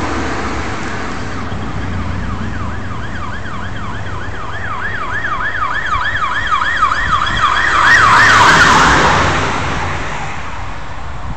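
Emergency vehicle siren in a fast yelp, its pitch rising and falling about four times a second, growing louder and passing close at about eight seconds with a rush of road noise before fading. Steady highway traffic rumble underneath.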